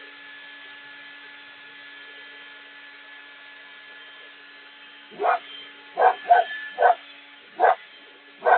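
A dog barking: six short barks, starting about five seconds in and coming in quick succession, over a steady hum.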